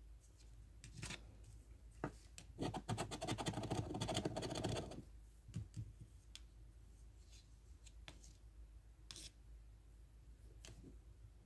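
A large coin scraping the coating off a scratch-off lottery ticket. There are a few single scrapes and taps, then a dense run of rapid scratching about two and a half seconds in that lasts a couple of seconds, then more scattered short scrapes.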